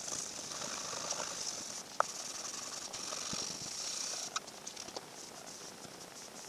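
Wet sanding: 1000-grit sandpaper on a sanding block, rubbed with water over the guitar body's finish to level it. It makes a steady scrubbing hiss with a sharp click about two seconds in, and it drops off about four and a half seconds in to a few small clicks.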